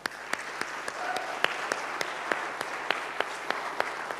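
Audience applauding: a dense patter of many hands clapping, with single sharp claps standing out.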